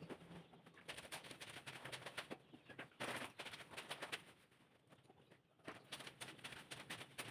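Faint rustling and light clicking of things being handled, with a quieter stretch near the middle.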